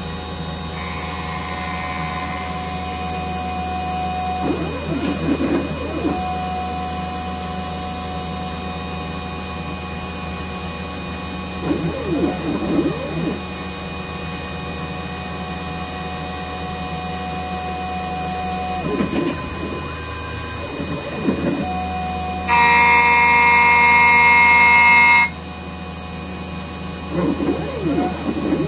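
CNC-converted X2 mini mill facing an aluminium block. The spindle runs steadily while the stepper motors hold a steady whine through each feed pass, with sweeping pitch changes roughly every seven seconds. Near the end comes a louder, higher whine that lasts about three seconds.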